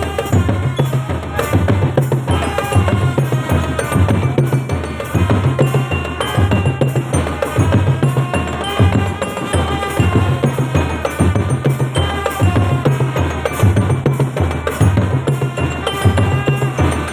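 Marching drum band playing: bass drums keep a steady, even beat under snare drum rolls and strikes, with a pitched melody carried over the drums.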